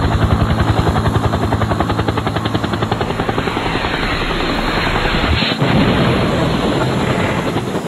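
Helicopter rotor sound effect: the steady, rhythmic chop of rotor blades, easing off and fading away near the end.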